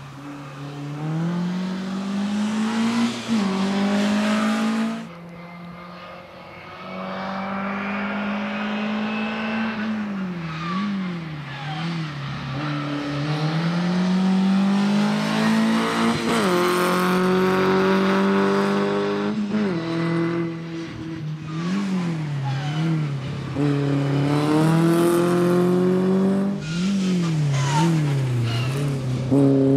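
Škoda Felicia race car's engine revving hard through a cone slalom. The pitch climbs and falls over and over with throttle lifts and gear changes, and the level drops sharply about five seconds in when the driver comes off the throttle.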